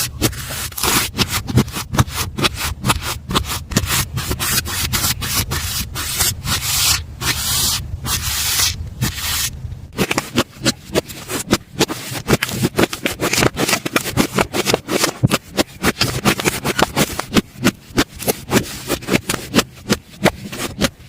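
Slime being handled close to the microphone: a dense run of scraping and crackling, turning about halfway through into quick separate clicks and pops.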